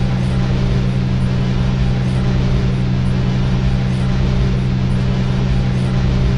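Harsh noise music: a loud, unchanging wall of dense static and low rumble, with two steady low droning tones held over it.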